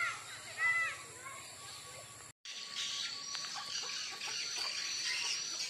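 A sendaren kite hummer of the Bugis 'Pitu-pitu' type, singing on a kite aloft in rising and falling tones. The sound breaks off briefly about two seconds in, then comes back as a higher, steadier humming note.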